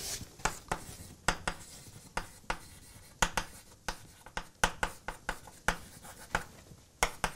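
Chalk writing on a blackboard: an irregular run of sharp taps and short scratches as words are written out.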